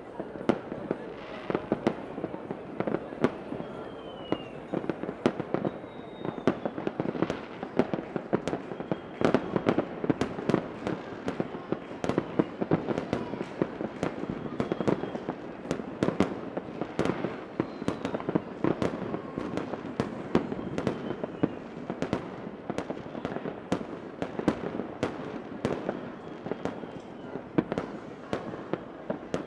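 Fireworks going off densely: a continuous barrage of sharp cracks and pops, many overlapping, with now and then a faint whistle gliding in pitch.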